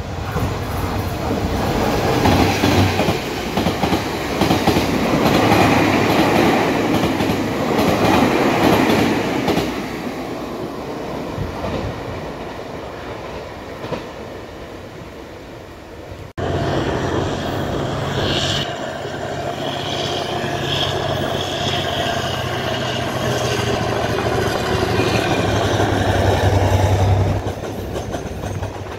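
A Taiwan Railway electric locomotive hauling a TEMU2000 tilting train set passes with rumbling wheel clatter that swells and then fades. After a sudden cut, an R-class diesel-electric locomotive hauling an EMU3000 set runs by with a steady low engine drone under wheel noise and high-pitched wheel squeal.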